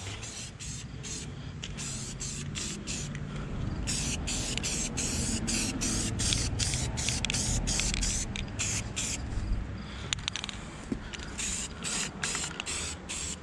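Aerosol spray paint can hissing as white paint is sprayed over welded steel, in many short spurts with a couple of longer passes in the middle.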